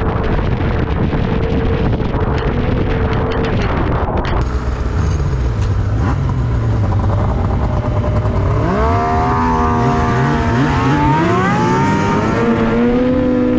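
Two-stroke snowmobile engine running at a steady speed with wind noise on the microphone, then, after a cut, revving up with its pitch climbing for several seconds before it levels off near the end.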